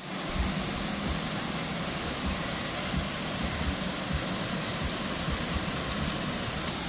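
Steady rushing outdoor noise with irregular low rumbling bumps.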